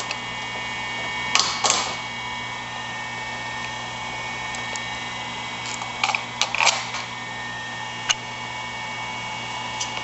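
Steel bolts, washers and nuts clicking and clinking against a boat hoist's metal frame and plastic corner guide plate as they are fitted by hand: a couple of sharp clicks about a second and a half in, a quick cluster around six to seven seconds and one more near eight seconds, over a steady background hum.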